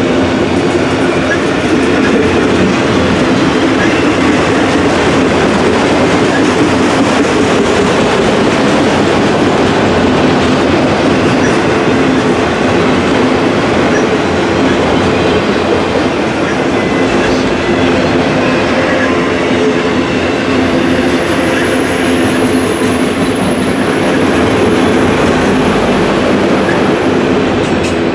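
A train rolling past close by: a loud, steady rumble of wheels on rail that holds for the whole stretch. A thin high whine joins it about twenty seconds in and lasts several seconds.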